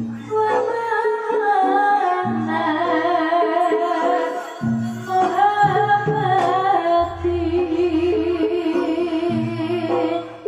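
Javanese gamelan music accompanying a barongan dance, with a female singer's wavering melody over steady struck notes. A deep low note comes back about every two seconds.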